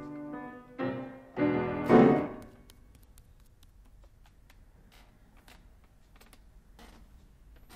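Piano playing a melody that ends about two seconds in with a loud crashing chord, which dies away; after it, only faint scattered clicks and taps.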